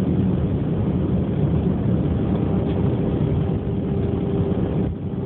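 Steady low rumble of an Airbus airliner's jet engines and airflow heard inside the passenger cabin, with a faint steady hum joining about two seconds in and a brief drop in level near the end.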